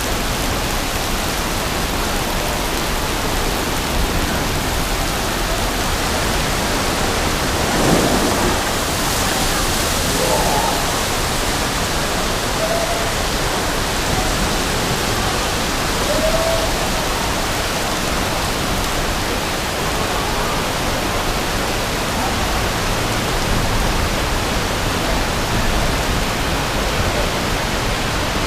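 Heavy rainwater cascading off buildings and splashing onto the street below, a steady rushing of falling water.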